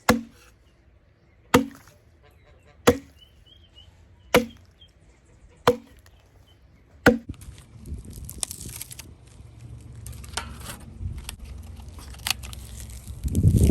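An axe chopping wood: six sharp strokes, about one every second and a half. After that comes a stretch of rough, noisy rustling that grows louder near the end.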